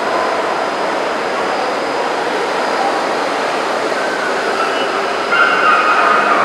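Steady, echoing crowd din of a packed exhibition hall, with no single voice standing out, growing louder about five seconds in.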